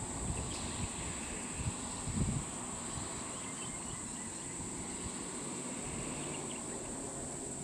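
Steady high-pitched drone of insects, over a low rumble, with a few dull bumps about two seconds in.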